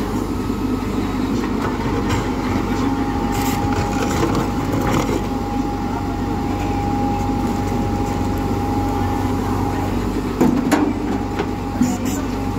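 JCB 3DX Xtra backhoe loader's diesel engine running steadily under load while the backhoe digs and dumps soil, with a thin steady whine from about a second in until about ten seconds. A few knocks near the end.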